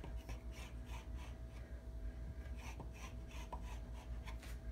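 Kitchen knife drawn through a thin sheet of rolled dough and scraping the countertop beneath it, in a run of faint, irregular short scrapes and taps, several a second. A faint steady hum runs underneath.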